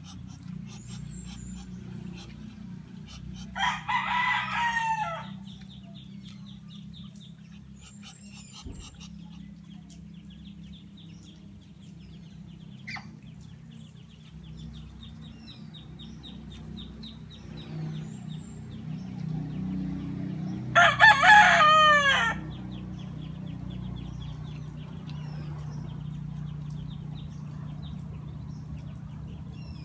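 Rooster crowing twice, a call falling in pitch about four seconds in and a louder one about twenty-one seconds in, over a steady low hum.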